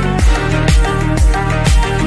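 Upbeat electronic background music with a steady dance beat, about two beats a second.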